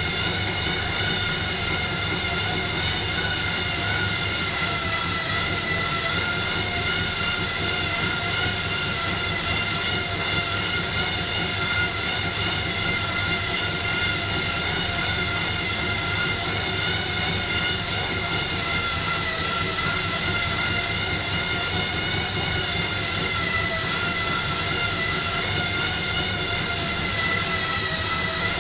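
Bicycle rollers spinning under a road bike's tyres while the rider pedals: a steady whirring whine with several pitched tones that dips slightly in pitch now and then as the pedalling speed changes.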